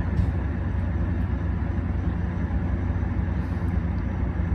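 Steady low drone of a MARC commuter train standing at the platform, its MP36 diesel locomotive running while stopped.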